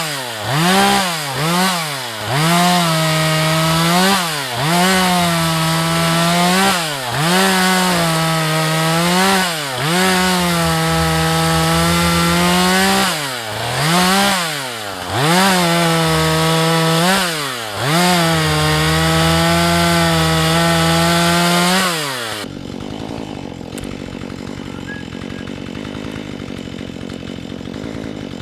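Husqvarna 435 two-stroke chainsaw running at high revs, its pitch dropping and picking back up about every two seconds, then cutting off abruptly about 22 seconds in.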